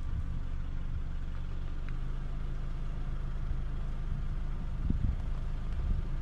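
Steady low drone of a vehicle's engine with road and wind noise while driving, and a few dull low bumps about five seconds in.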